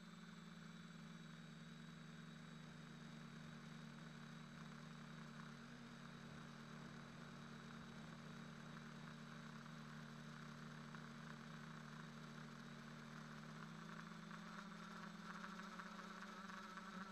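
Faint, steady hum of an X-configuration quadcopter's electric motors and propellers in flight, its pitch shifting slightly and growing a little louder near the end.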